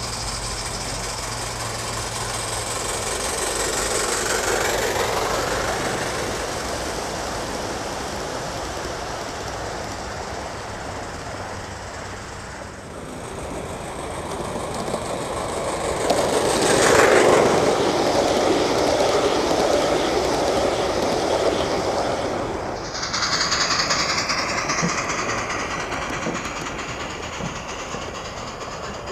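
Gauge 1 live-steam model trains running on garden track: the wheels of the locomotives and tank cars rolling and clacking over the rails. It is loudest about 17 seconds in, as a train passes close.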